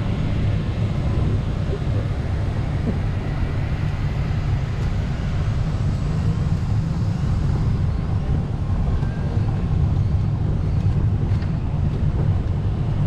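Steady low rumble of wind buffeting the microphone while riding in a moving golf cart, with the cart's running noise underneath and no break.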